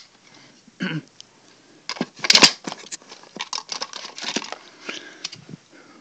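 Handling noise of plastic fire alarm devices and the phone being moved about: a short rustle about a second in, then from about two seconds on a dense run of clicks and clattering, loudest just after the start of that run.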